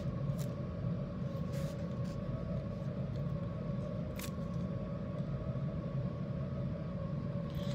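Steady low room hum, with a few faint crinkles of plastic packaging being peeled off a foam squishy toy.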